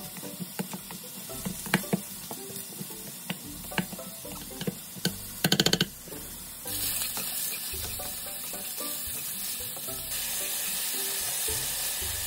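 Tongs toss boiled broccoli, tuna and mayonnaise in a stainless steel bowl, with scattered taps and clinks and a quick run of clicks about five and a half seconds in. About seven seconds in, king oyster mushroom slices in a frying pan start sizzling steadily, a little louder near the end.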